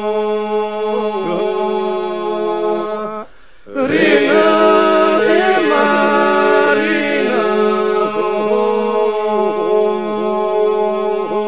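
Men's group singing Albanian iso-polyphony a cappella: the group holds a steady drone while solo voices weave ornamented melodic lines above it. The voices break off briefly about three seconds in for a breath, then come back in louder.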